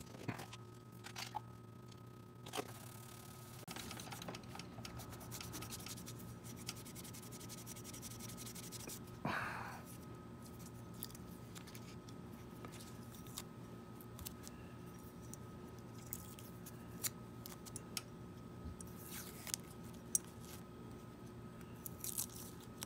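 Faint handling of a metal saxophone mouthpiece being worked by hand: scattered small clicks and scrapes, then blue masking tape crackling as it is peeled off around the bite plate near the end.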